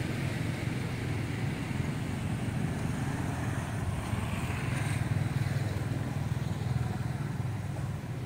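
Road traffic going by on a nearby road: a steady low engine rumble from passing cars and motorbikes, a little louder about five seconds in.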